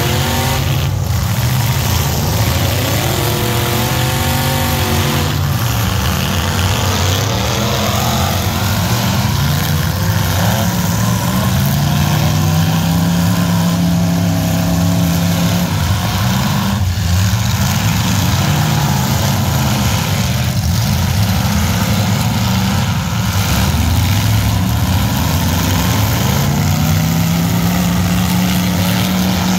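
Several demolition derby pickup trucks' engines running loud and revving, their pitch rising and falling again and again as they accelerate and back off.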